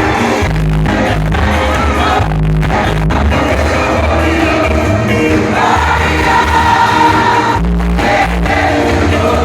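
Live gospel praise music: a band with heavy, sustained bass notes under a lead singer's voice.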